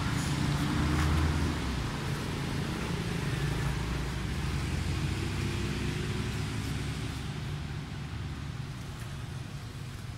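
A motor vehicle's engine running steadily, with a low hum that gradually fades away.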